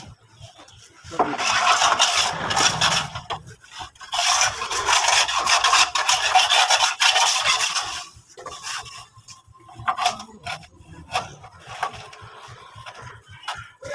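A long wooden straightedge scraped along a cement-rendered wall: two long stretches of rasping scraping, then shorter, sparser strokes after about eight seconds.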